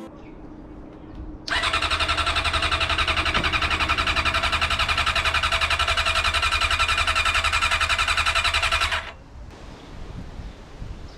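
Electric starter cranking a Honda CBR600's inline-four engine for about seven seconds at a fast, even pulsing pace without the engine catching, then stopping abruptly. This is a start attempt on an engine that has sat unused for seven years.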